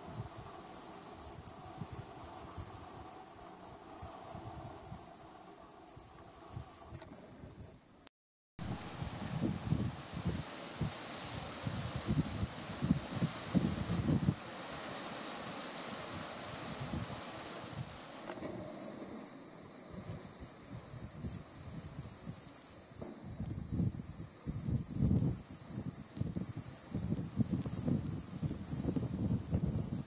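Steady, shrill chorus of insects buzzing without a break, high-pitched and continuous, cutting out for a moment about eight seconds in.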